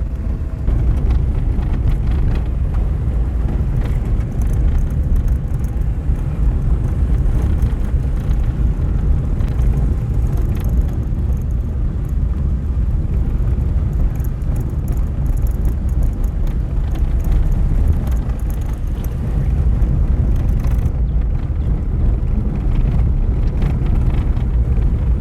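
Car driving on a gravel road: a steady, loud rumble of engine and tyres, with scattered small clicks.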